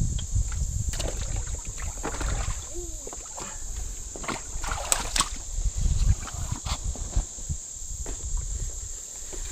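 Creek water sloshing and splashing in irregular bursts as someone wades through it, with a steady high insect drone underneath.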